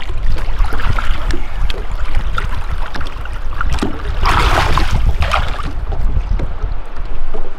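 Wind buffeting the microphone over rushing water around a boat in fast river current, with a brief louder rush of noise about four seconds in.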